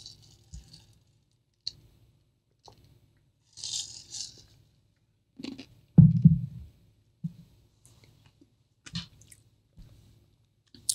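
Drinking from a metal tumbler: a couple of hissy sips and swallows, with the loudest sound a thump about six seconds in, likely the cup being set down on the desk. Small clicks and taps come through between them.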